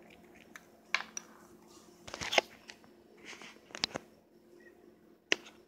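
Handling noise from a toothpick and a small clear plastic container: several sharp clicks and taps with brief scraping, over a faint steady low hum.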